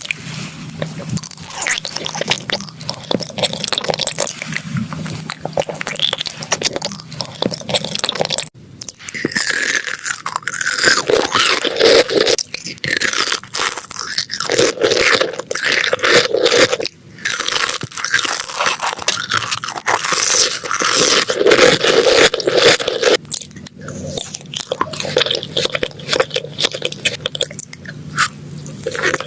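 Close-up eating of crisp food: dense, irregular crunching from biting and chewing, with brief pauses twice.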